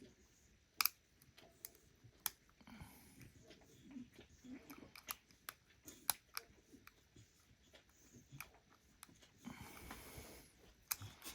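Scattered small, sharp clicks of lock picks working in a challenge lock, the loudest just under a second in, with a dog's wet licking in between.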